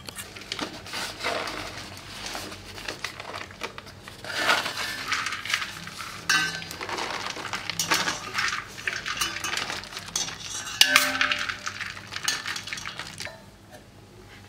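Metal slotted spatula scraping and clinking irregularly against a steel pot while scooping puffed rice, with the dry rustle of the puffed rice being poured into a paper cone.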